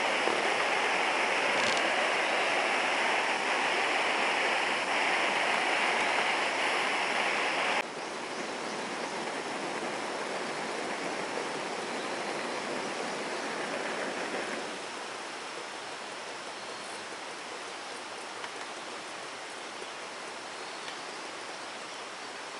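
Iwatani Junior Compact cassette-gas burner running with a steady hiss under a small pan of water being brought to the boil. About eight seconds in the hiss drops abruptly to a lower level, and it steps down again about fifteen seconds in.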